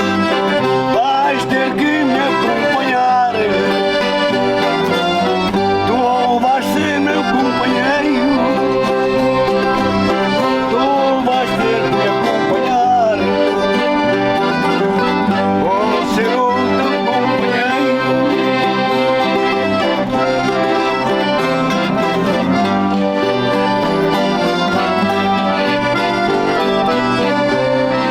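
Accordion and plucked stringed instruments playing traditional folk music together, with a steady held accompaniment under a wavering melody line.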